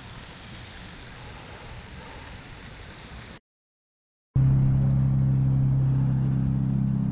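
Quiet outdoor wind noise, cut off abruptly by about a second of dead silence; then a loud, steady mechanical hum with a deep low tone starts suddenly about four seconds in and holds level.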